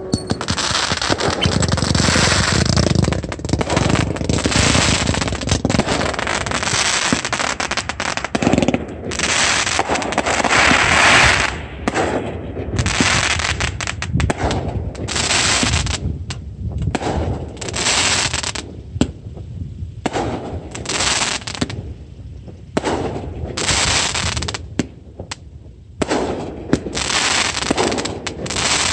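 A fireworks display going off: a dense, nearly continuous run of bangs for about the first nine seconds, then separate bursts roughly one to two seconds apart.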